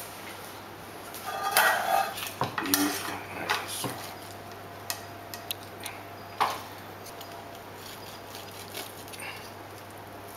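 Metal utensils clinking and scraping against a ceramic roasting dish and plate as a roast pork joint is lifted out and set down. There is a busy cluster of clinks in the first few seconds, a single sharp knock about six seconds in, and then only a few faint ticks.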